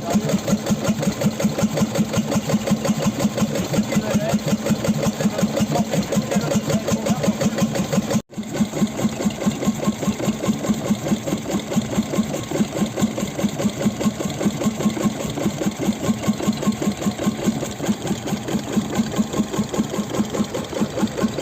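Old marine engine running steadily, its strokes coming as a rapid, even knocking beat. The sound drops out for a moment about eight seconds in.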